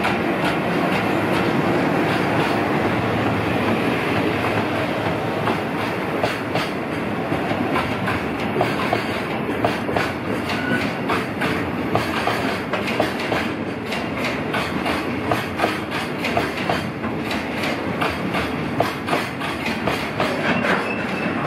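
EF210 electric locomotive and its train of container flat wagons rolling past slowly, with a steady rumble and irregular clicking as the wheels cross rail joints.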